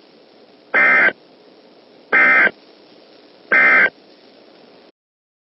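Three short bursts of Emergency Alert System SAME digital data tones, about a second and a half apart: the End of Message code that closes the warning. A faint hiss sits under them, and the audio cuts to silence about five seconds in.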